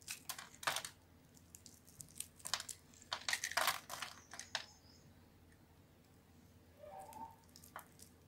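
Bar of soap scored into small cubes crunching and crackling as fingers press and bend it, the cubes snapping apart. Bursts of sharp crackles in the first second and again from about two to five seconds in, with a few quieter ones near the end.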